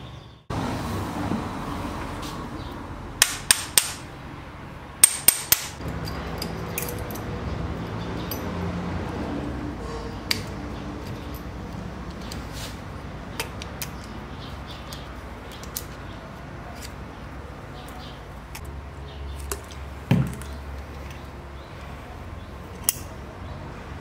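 Tools being handled on a workbench: two quick sets of three sharp clicks a few seconds in, then scattered small taps and a dull knock near the end.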